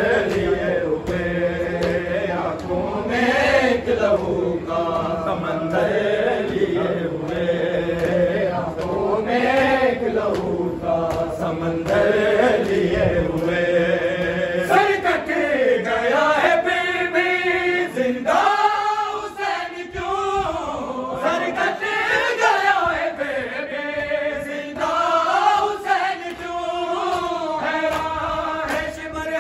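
A group of men chanting a noha, a Shia mourning lament, together in Urdu, the melody rising and falling in long sung lines.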